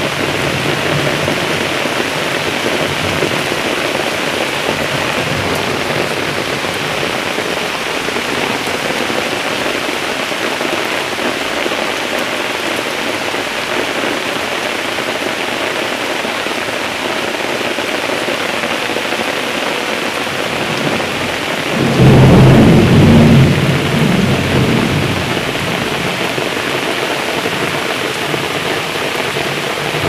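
Steady rain falling, a dense even hiss. About three-quarters of the way through, a loud clap of thunder breaks in and rumbles for a few seconds before fading.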